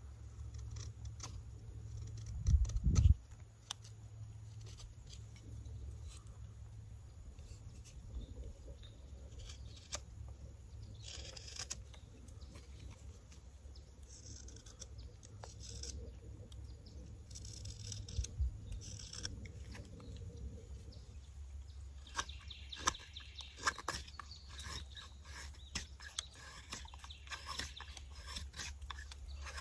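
Carving knife shaving and scraping a walnut spoon: irregular small cuts and scrapes of steel on hardwood, thickest in the second half, with a couple of heavier knocks about three seconds in. A low steady rumble sits under it all.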